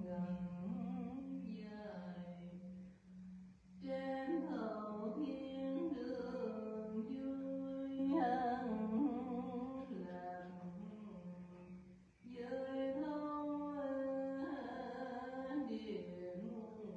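A solo voice chanting a Buddhist verse in long, drawn-out melodic phrases with vibrato, with short breaks between phrases about four, eight and twelve seconds in, over a steady low hum.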